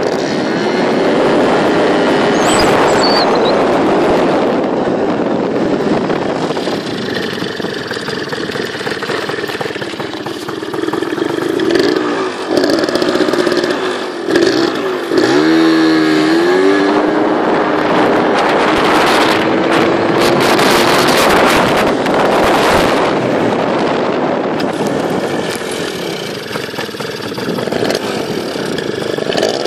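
Aprilia SR125 scooter engine running on a cold start, making the weird noise the owner is asking about. About halfway through the engine speed wavers, dipping and then picking up again before settling back to a steady run.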